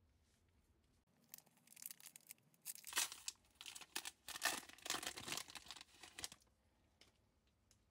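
Foil wrapper of a 1996 Upper Deck basketball card pack being torn open and peeled back: a run of crackling, crinkling tears that starts about a second in and stops about six and a half seconds in.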